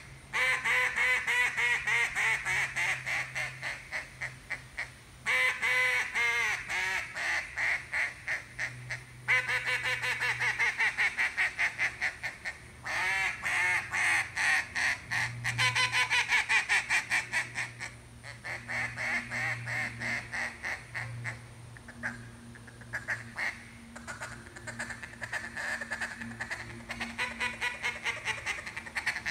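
RNT Daisy Cutter single-reed duck call blown in rapid strings of mallard hen quacks, several runs separated by short pauses, some of them falling in pitch from note to note.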